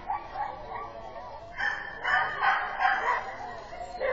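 Dogs barking faintly and irregularly, with indistinct voices, over outdoor background noise; the barking is busiest in the middle of the stretch.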